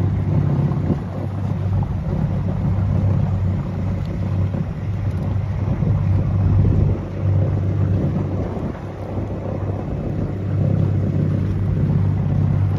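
Motorboat engine running steadily at low speed, a constant low hum, with wind buffeting the microphone.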